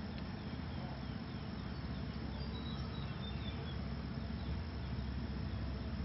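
Oriental magpie-robins calling: a run of short, high, falling chirps, about three a second, through the first half, over a steady low background rumble.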